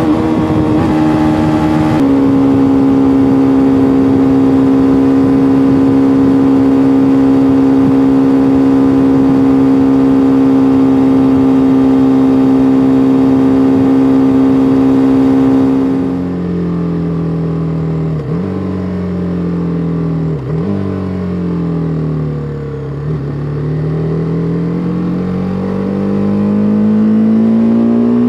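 BMW G310R's 313 cc single-cylinder engine held at steady high revs under full throttle. About two-thirds of the way through the revs drop off, with two brief dips like gear changes, then climb steadily again as it accelerates near the end.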